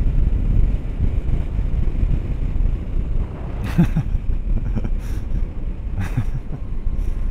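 Wind buffeting the microphone over the low rumble of a motorcycle riding along at road speed, with a few brief louder gusts or knocks in the second half.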